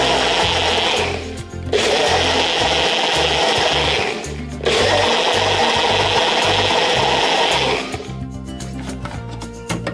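Countertop blender running at full speed, whisking a liquid to froth. It cuts out briefly twice, about a second in and about four seconds in, then stops near the end.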